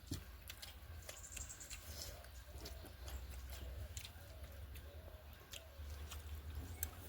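Close-miked chewing: wet mouth clicks and smacks while eating pork curry, repeating irregularly over a low steady hum.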